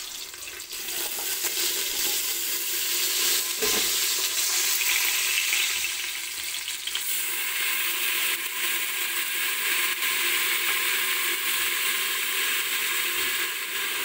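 Sliced onions sizzling in hot oil in an aluminium pressure-cooker pot: a steady frying hiss that grows louder over the first couple of seconds and then holds. A single brief knock sounds about four seconds in.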